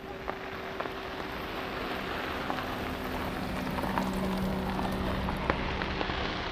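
Fireworks bursting: a few sharp pops, the strongest about four and five and a half seconds in, over a steady rushing hiss with a faint low hum.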